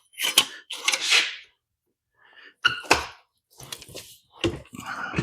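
Hand-operated bar folder being worked on small sheet-metal strips: a series of separate clunks and short scrapes of metal as pieces are set in and folded.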